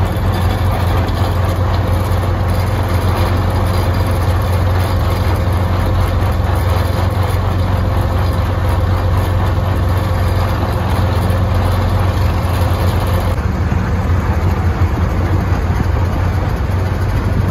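Farm tractor engine running steadily under way, heard from on board the tractor as a loud, even, low drone. Near the end the sound turns a little duller.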